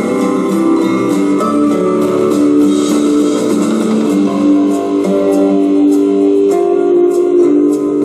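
Royalty-free instrumental music with guitar, playing steadily from an MP3 player.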